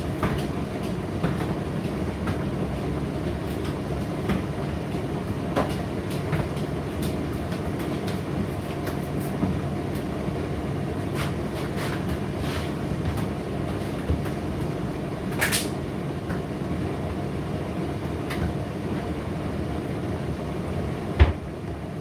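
Indesit IDC8T3 condenser tumble dryer running: a steady hum from the motor and fan as the drum turns, with irregular light clicks and knocks from the tumbling load. The loudest knock comes about a second before the end.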